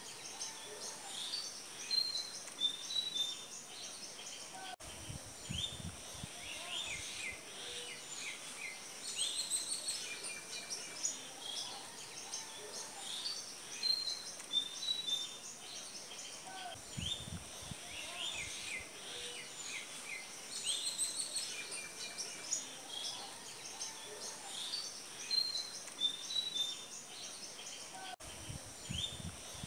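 Small birds chirping and twittering in a busy chorus of short, high calls, with a brief low rumble about every eleven seconds. The same stretch of sound seems to repeat, like a looped nature-ambience track.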